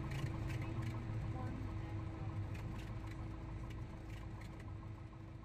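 Cessna 172SP's four-cylinder Lycoming engine idling while the plane taxis, heard inside the cabin, growing steadily quieter.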